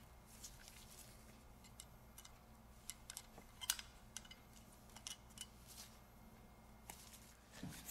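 Faint, scattered small clicks and scrapes of a flat-blade screwdriver tip against the metal housing of an Ingersoll Rand IR231 impact wrench as an O-ring is pushed into its groove, over a low steady hum.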